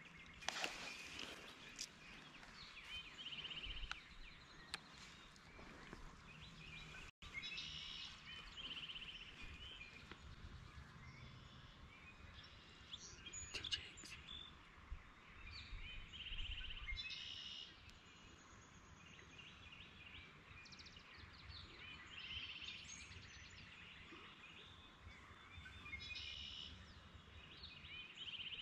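Faint songbirds singing, several overlapping trills and chirps, over quiet outdoor background noise. The sound cuts out for an instant about seven seconds in.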